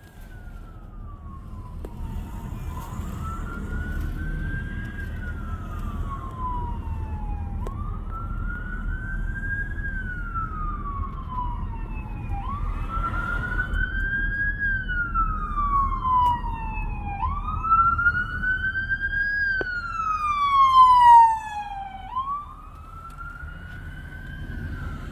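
Ambulance siren on a slow wail, each rise and fall taking about five seconds, growing louder as it approaches and loudest near the end. Heard from inside a vehicle cab, over a low traffic rumble.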